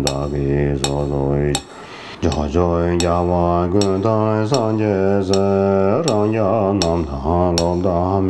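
A man chanting a Tibetan Buddhist prayer in a low, steady voice, with a short break for breath about two seconds in. Sharp clicks about every three quarters of a second keep time under the chant.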